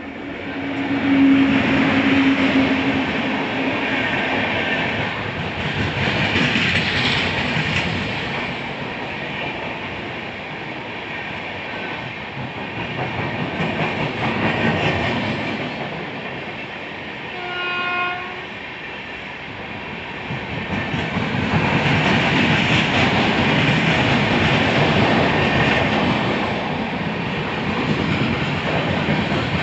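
Rajya Rani Superfast Express running through a station at speed without stopping: a steady rush of passing coaches with wheel clatter over the rail joints, swelling and easing in waves. A horn sounds about a second in, and a second short horn blast comes near the middle.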